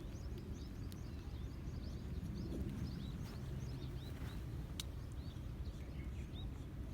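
Small birds chirping again and again in short high calls over a steady low outdoor rumble, with a sharp click about five seconds in.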